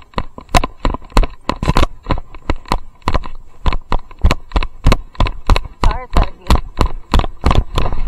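Chest-mounted action camera knocking loosely in its harness, a sharp rhythmic rattle about three times a second in step with the horse's stride.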